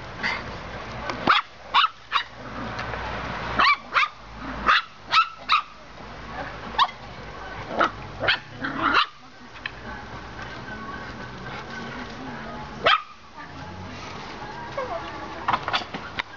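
Patterdale Terrier puppies yapping in play: short, high-pitched barks at irregular intervals, a dozen or more, with a quieter stretch in the middle.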